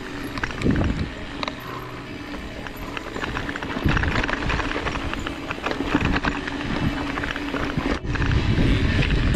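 Mountain bike ridden over rough trail: the bike clattering and rattling over bumps in many quick, irregular knocks, with tyres rolling on dirt.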